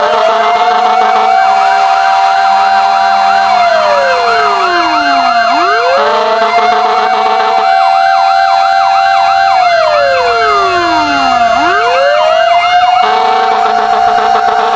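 Fire engine sirens: a wailing siren rises, holds high and falls slowly, about every six seconds, over several faster yelping sirens sweeping up and down.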